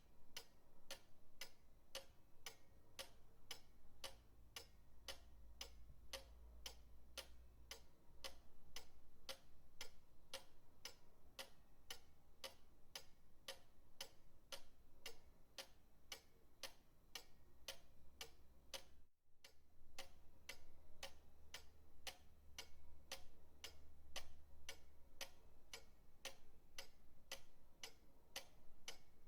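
Pendulum clock ticking steadily, its escapement giving even, sharp ticks somewhat under two a second, with a momentary drop-out about two-thirds of the way through.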